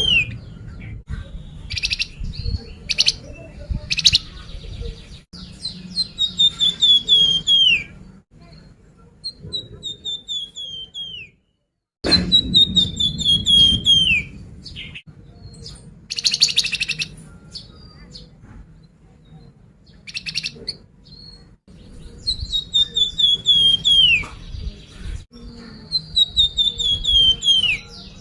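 Flamboyan songbird singing lure song: repeated phrases of quick whistled notes that step down in pitch over about two seconds, with short sharp chirps in between.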